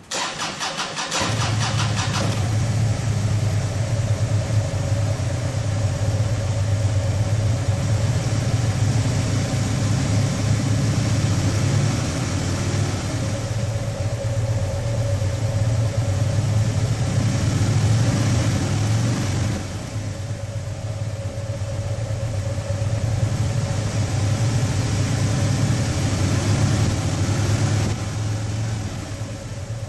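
Harley-Davidson Dyna Switchback's V-twin engine being started through its muffler: a couple of seconds of starter cranking, then it catches and idles, with three slow rises and falls in engine speed from the throttle.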